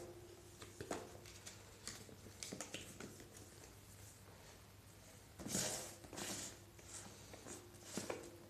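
Quiet handling noises: scattered small clicks and taps, with a brief louder rustle about five and a half seconds in.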